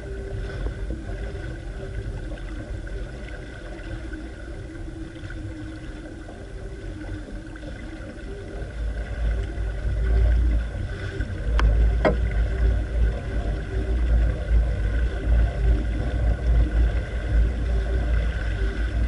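Water rushing and splashing along the hull of a Catalina 22 sailboat under way, with a steady hum. Wind buffets the microphone, growing heavier and gustier from about halfway.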